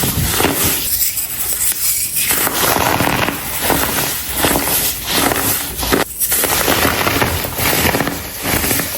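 Clumps of dyed baking soda being crushed and crumbled by hand, a dense crunchy crackling that keeps going with a brief break about six seconds in.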